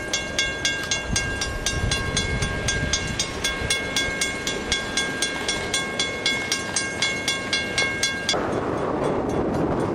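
Railroad grade-crossing warning bell ringing steadily at about three strikes a second, warning of an approaching train. It cuts off abruptly near the end and a steady rushing noise follows.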